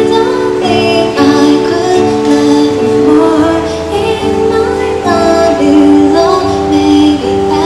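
Music: a woman singing a pop song over instrumental backing, with a bass line coming in about three and a half seconds in.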